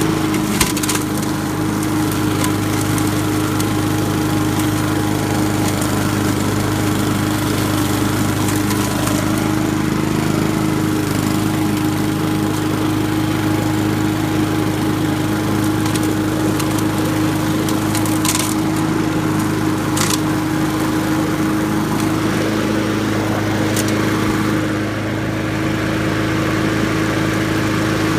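Honda walk-behind lawn mower engine running steadily under load while cutting grass and leaves, with a few sharp clicks scattered through.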